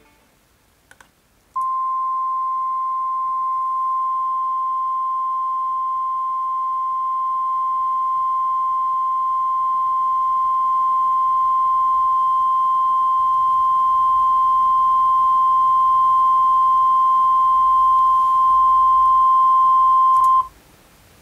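Steady 1 kHz reference test tone picked up by a Behringer C-1 condenser microphone. It starts about a second and a half in and cuts off suddenly near the end. It slowly grows louder as the mixer's input gain is turned up to set the reference level.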